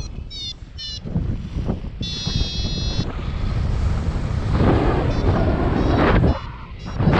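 Wind buffeting the microphone in a loud low rush, gusting harder in the second half. Over it a paragliding variometer beeps: a run of short rising beeps at the start, one longer steady tone about two seconds in, and a few short beeps near the end.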